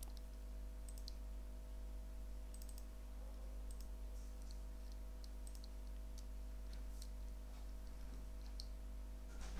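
Faint, scattered computer mouse clicks, about a dozen over several seconds, over a steady low electrical hum.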